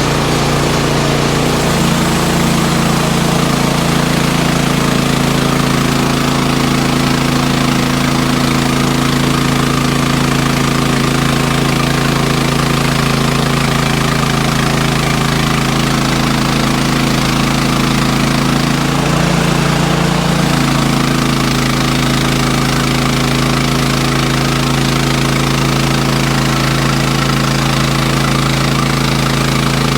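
Sawmill engine running steadily, its pitch shifting briefly about twenty seconds in.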